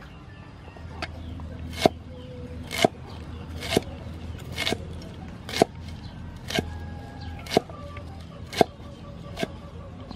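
Cleaver chopping fresh leafy greens on a wooden chopping block, a sharp knock about once a second.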